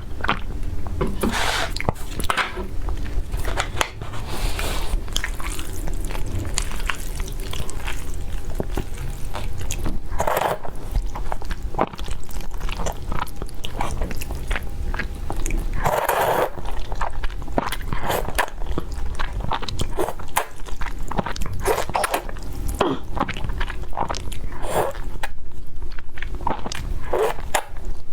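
A person eating close to the microphone: biting and chewing food, with many short crunches and clicks and a few longer mouth sounds every few seconds.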